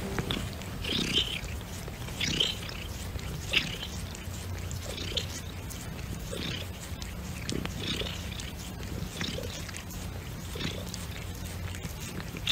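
Domestic cat purring close up: a steady low buzz that swells with each breath, roughly every second and a half.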